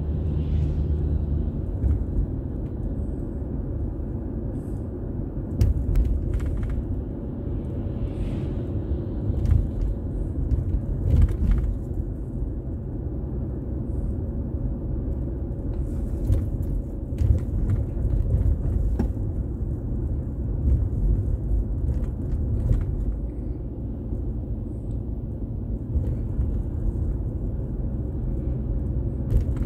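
Car driving on town roads: a steady low rumble of engine and tyres, broken by scattered short knocks and thumps.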